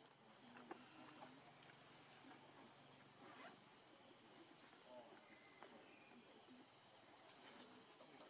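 Faint, steady high-pitched chirring of insects in the surrounding vegetation, with a few faint ticks.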